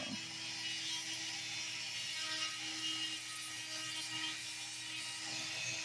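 Small rotary tool running steadily at low speed with an aluminium oxide sanding band on its drum, whirring as the band rubs against an opal held in the fingers.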